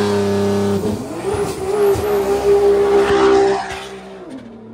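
Tuned Nissan GT-R's twin-turbo V6 held at high, steady revs while spinning its tyres to heat them before a drag run, with tyre squeal. The revs dip briefly about a second in, and near the end the engine note drops and fades as the car pulls away.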